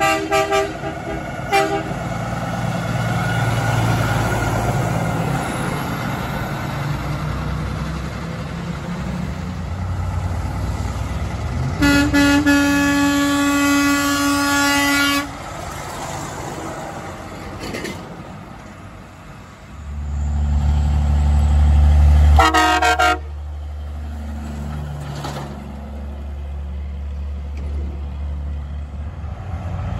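Semi-truck air horns sounding over the rumble of passing trucks: two short blasts from an International LoneStar's Hadley air horn at the start, then a long, loud blast of about three seconds from an International HX520's Hadley air horn about twelve seconds in. Later a truck's engine grows loud as it passes close and a brief horn blast cuts in before the rumble eases.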